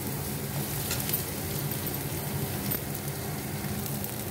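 Chopped onions sizzling steadily in hot oil in a kadhai, frying toward golden brown, with a few faint clicks.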